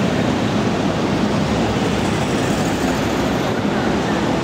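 Steady, loud rumble of city street traffic and an idling diesel fire truck.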